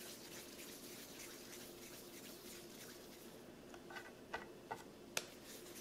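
Quiet handling of soft bread dough: balls of dough rolled between the palms and set down on a wooden cutting board, with a few soft taps about four to five seconds in, over a faint steady hum.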